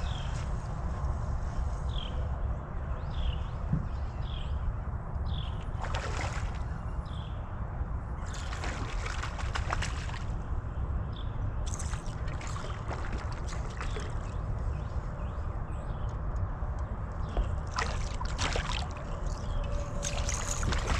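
Water sloshing and splashing around a small fishing boat over a steady low rumble. Short high chirps repeat about once a second in the first several seconds, and sharp bursts of splashing or clatter come every few seconds after that.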